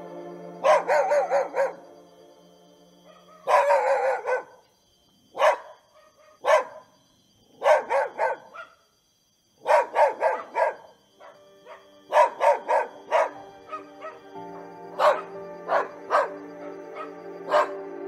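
Dogs barking in short volleys of several quick barks each, again and again, over soft background music with steady held notes.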